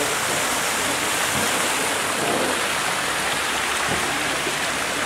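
Steady, even rushing noise, evenly spread from the middle pitches up into a high hiss, with no clear single source.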